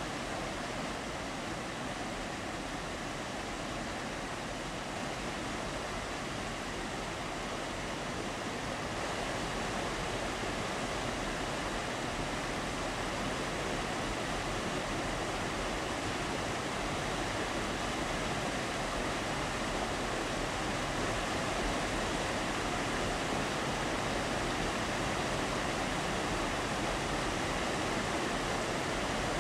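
Creek water rushing over rocks and small cascades: a steady wash of running water that grows slightly louder toward the end.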